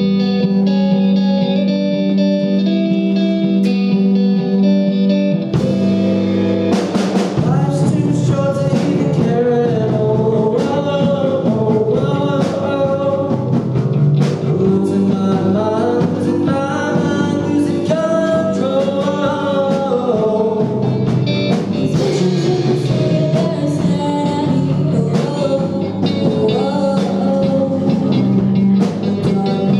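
Rock band playing live with guitar, drum kit and a lead singer. A held chord opens the song, the drums and full band come in about five and a half seconds in, and the singing starts a couple of seconds later.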